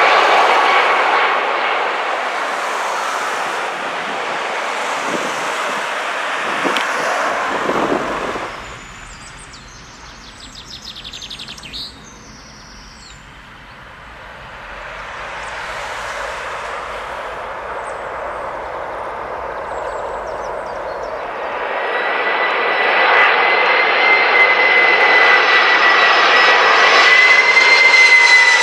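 Boeing 747 freighter jet engines: a loud rush on landing that fades away about eight seconds in. After a quieter stretch with faint bird chirps, the noise builds again about twenty-two seconds in as another 747 comes in low, a steady high engine whine over the rush.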